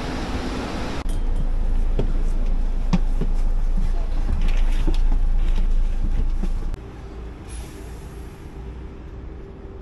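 Coach bus running, heard from inside the cabin as a steady low engine rumble with a few sharp knocks as passengers board. About seven seconds in it drops to a quieter outdoor rumble with a steady hum.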